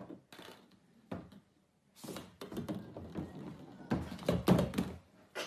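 Scattered knocks and thuds of a cat batting a small plastic ball against a hollow plastic toddler slide and scrambling on it, with near-silent gaps between them. The loudest thuds come about four seconds in, as the cat lunges.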